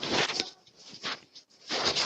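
Scraping and rustling handling noise right against a doorbell camera's microphone, in irregular bursts, loudest in the first half-second and again near the end.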